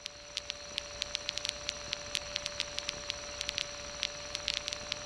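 Faint crackling static with irregular clicks over a steady electrical whine and hiss on an aircraft radio and intercom audio feed, with no engine sound coming through.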